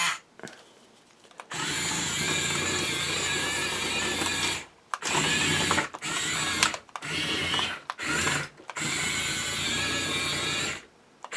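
Small electric gear motors of a HUINA 1510 1/16-scale RC excavator whirring in about six stop-start runs as its arm, turret and blade are driven. The runs last from under a second to about three seconds.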